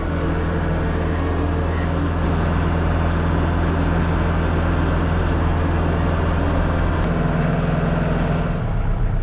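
TYM 474 tractor's diesel engine running steadily, heard from inside the cab while the tractor carries a load of logs in its front loader. The engine note shifts about seven seconds in and changes again near the end.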